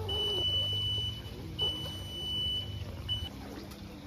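High-pitched beep sounding three times: two long tones of about a second each, then a short one, over a low steady hum.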